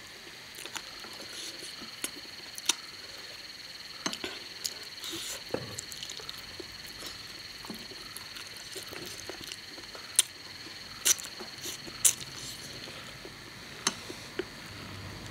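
A person eating spicy prawns and chicken feet with chopsticks from a clay pot: close chewing and mouth noises with scattered sharp clicks, the loudest about ten, eleven and twelve seconds in.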